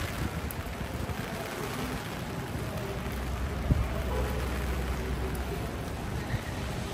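Steady rain falling on an umbrella and the wet street, with a low rumble of city traffic in the middle and a dull thump about three and a half seconds in.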